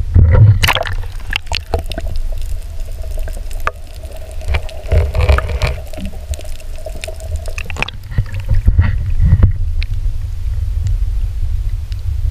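Muffled water rumbling and sloshing right against the microphone, with scattered clicks and knocks from the mesh net of sea urchins being handled. A faint steady hum is heard for a few seconds in the middle.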